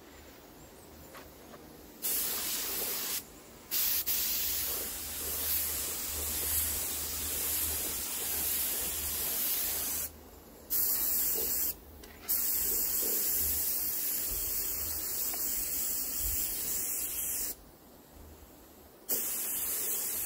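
Compressed-air spray gun with a gravity-feed paint cup spraying paint, a loud hiss that comes in several long bursts with short breaks as the trigger is released and pulled again.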